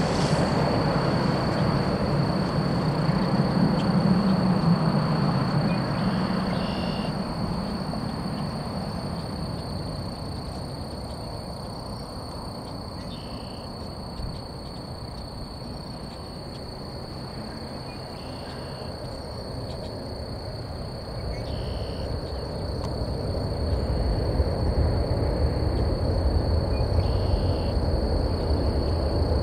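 Jet engines of a Boeing 737 airliner landing: a broad engine rumble and rush, loudest a few seconds in as it comes over the threshold, fading through touchdown, then rising again with a low rumble over the last several seconds as the plane rolls out on the runway.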